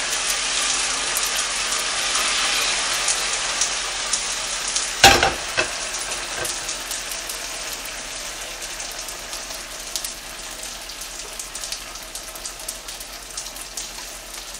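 Chunjang (black bean paste) sizzling as it fries in cooking oil in a pan, a steady hiss that slowly gets quieter. A sharp knock about five seconds in.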